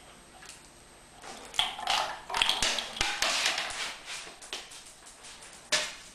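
Light taps and clicks: a cluster of them with short rattles from about a second into the sound until about four and a half seconds, then one sharp click near the end.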